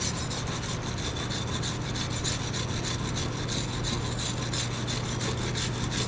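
Wire brush scrubbed rapidly back and forth over MIG weld beads on a steel plate, cleaning the welds.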